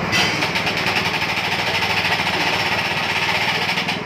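Engine-driven winch machine running steadily, with a fast rattling chatter that sets in at the start and stops just before the end.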